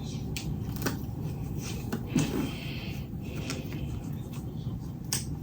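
Handling noise from hands knotting an elastic wig band: a few light clicks and a brief rustle about two seconds in, over a steady low hum.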